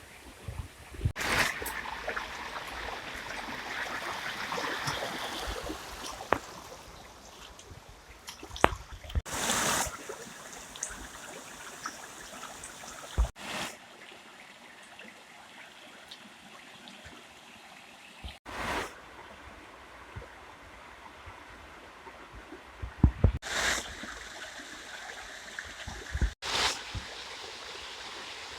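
Water of a small waterfall stream running and trickling steadily, broken about five times by short, loud rushes of noise.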